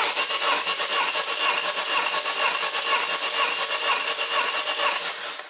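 Citroën C4's 1.6-litre 16-valve turbodiesel engine (9HZ) being turned over by its starter for a compression test of cylinder one: a steady mechanical churning with a quick, even pulse as each cylinder comes up on compression. It starts and stops abruptly.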